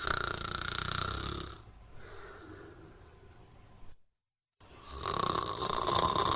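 A person snoring: two loud snores, each about two seconds long, with a quieter breath out after the first and a brief silent break before the second.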